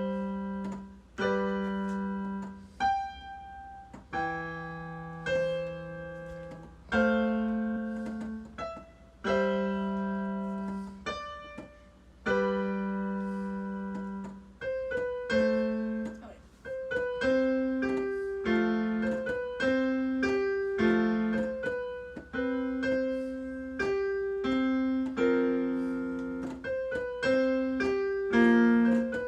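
Solo piano playing: slow, sustained chords that ring and fade, moving after about fifteen seconds into quicker, steadier notes.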